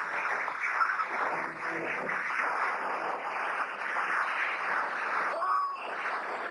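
Steam hissing out in a steady, dense rush, as from a burst steam line.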